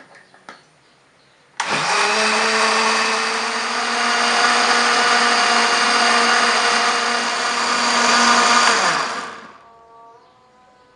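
Electric countertop blender puréeing pumpkin chunks in liquid. It is switched on about a second and a half in, revs up and runs steadily for about eight seconds, then is switched off and spins down.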